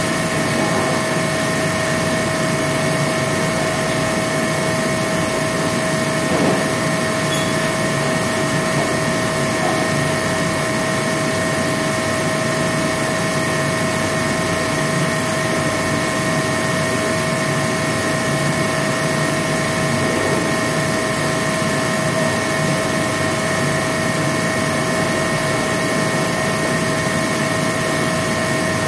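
A machine running steadily: an even hum with several steady whining tones that does not change.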